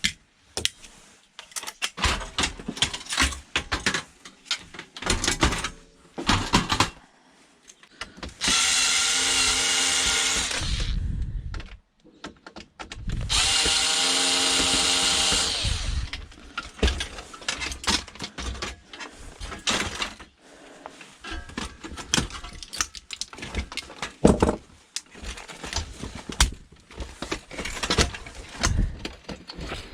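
Cordless drill/driver running in two bursts of two to three seconds each, backing screws out of a printer during a teardown, among repeated knocks and clatter of plastic parts being handled and pulled apart.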